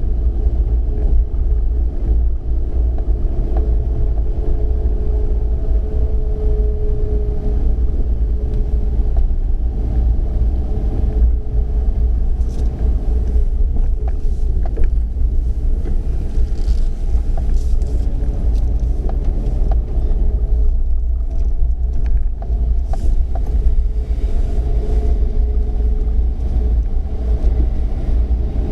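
Steady low engine rumble with a faint hum whose pitch drifts slowly up and down.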